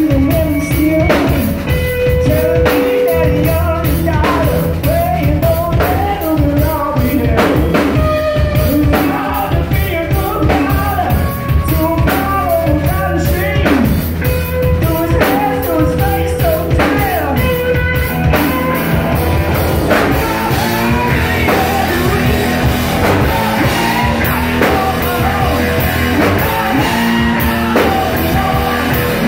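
Live rock band playing loudly: electric guitar, bass guitar and drum kit, with a man singing over them.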